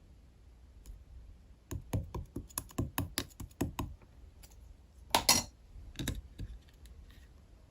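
Clay slime worked by hand, giving a quick run of small sticky clicks and pops, then a louder burst of crackling about five seconds in and a few more clicks after it.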